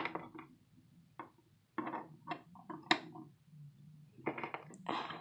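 Plastic toy figures being handled and set down on a small plastic toy table and chairs: scattered light clicks and taps, with a few short bursts of rustling near the end.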